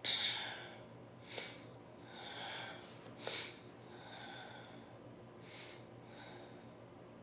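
A person sniffling and snorting through a nose congested by allergy: a loud sniff at the start, then several shorter, fainter ones.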